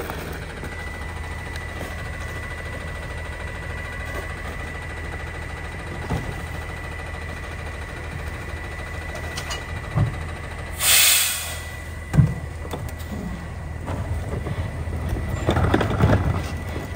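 Rear-loader garbage truck idling with a steady high whine over the engine hum. Trash bags and a cart thump into the hopper, with a short, loud burst of air hiss about eleven seconds in and louder clattering near the end as a cart is emptied.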